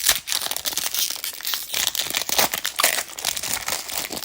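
Foil wrapper of a Pokémon TCG booster pack crinkling and rustling as it is torn open by hand, a dense run of small crackles.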